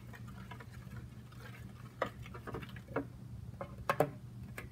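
A spoon stirring a glue-and-water mixture in a clear bowl, with a few light clinks and knocks against the bowl, the loudest pair about four seconds in.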